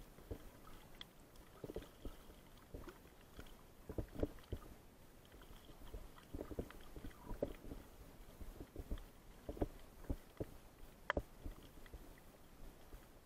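Faint underwater sound picked up through an action camera's waterproof housing: irregular soft knocks and clicks, several a second, over a low hiss, with one sharper click about eleven seconds in.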